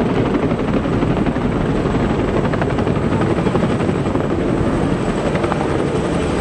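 Military helicopters flying overhead in formation, led by a tandem-rotor Chinook, their rotors giving a steady, fast, chopping beat.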